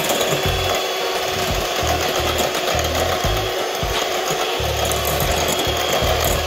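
Electric hand mixer running steadily, its beaters whipping white topping in a glass bowl.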